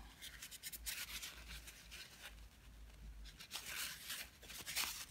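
Faint, intermittent rubbing and scraping of hands handling things, in three soft scrapes.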